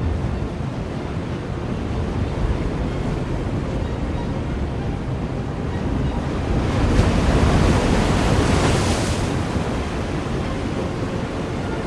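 Ocean surf: a steady wash of breaking waves, with one bigger wave crashing and hissing about seven seconds in.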